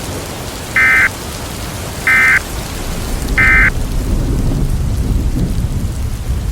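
Three short Emergency Alert System end-of-message data bursts (the SAME "NNNN" code), each a brief warbling two-tone squeal, about a second apart. Under them runs a steady bed of rain and rolling thunder, with the low rumble swelling in the second half.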